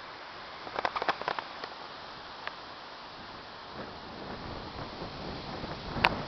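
Steady outdoor wind noise that grows a little louder in the second half, with a quick cluster of sharp clicks about a second in and another loud click near the end.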